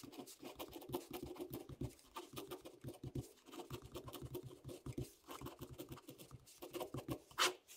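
Ballpoint pen writing on paper: a run of short, scratchy pen strokes, with one louder sharp sound near the end.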